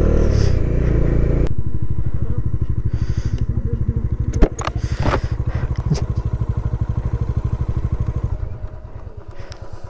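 Motorcycle engine dropping from riding speed, with wind noise, to a low, evenly pulsing idle as the bike slows and stops. A few sharp clicks come through the middle, and the engine quietens near the end.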